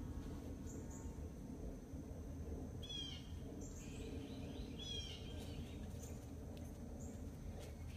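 Steady outdoor background noise, low in pitch, with a few short bird chirps about three seconds in and again around four to five seconds in.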